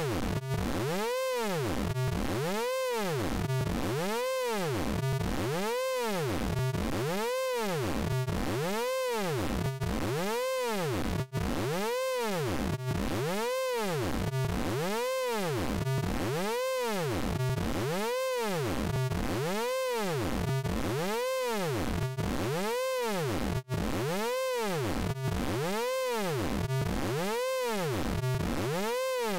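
Synthesized sound effect from the Orange Vocoder plugin: a pitched electronic tone whose pitch sweeps up and down in a steady repeating wobble, about once a second. It drops out for a split second twice, about twelve seconds apart, where the loop restarts.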